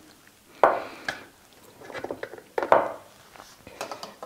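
A small glass bottle and a plastic funnel being handled and set down on a wooden cutting board: two knocks, the first just over half a second in and the second about two and a half seconds in, then a few light clicks near the end.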